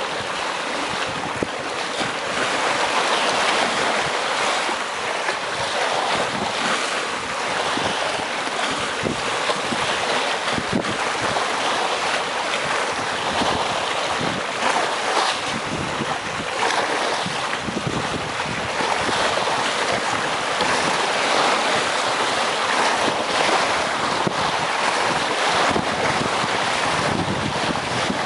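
Sea waves washing and breaking against breakwater rocks, a continuous splashing surge that swells and eases, with wind noise on the microphone.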